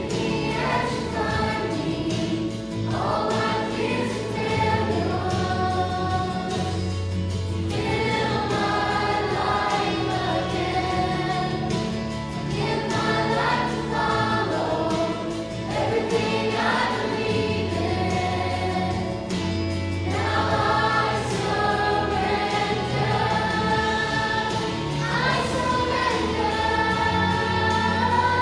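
A youth choir singing a Christian worship song in unison over instrumental accompaniment with a steady, slowly moving bass line.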